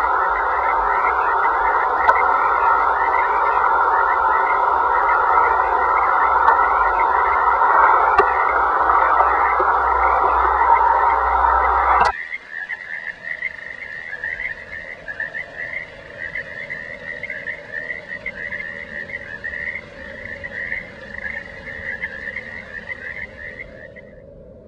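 A fast, pulsing chorus of repeated croaking calls over a loud, dense noisy layer. The noisy layer cuts off suddenly about halfway through, leaving the croaking quieter until it stops near the end.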